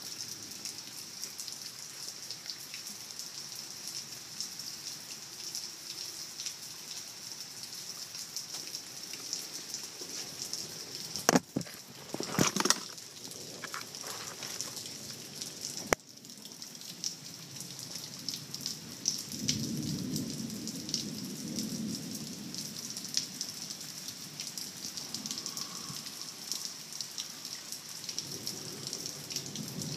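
Heavy rain falling steadily: a dense hiss of pattering drops. About eleven to thirteen seconds in, a few loud knocks break through it, and there is a sharp click a little later.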